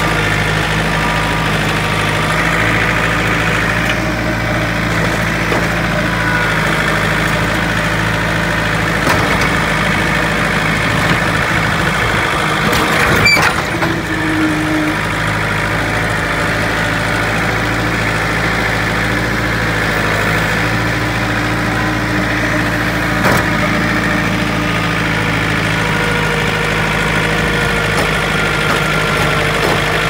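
Tractor engine running steadily while plowing snow with a front loader blade, with a sharp knock about halfway through.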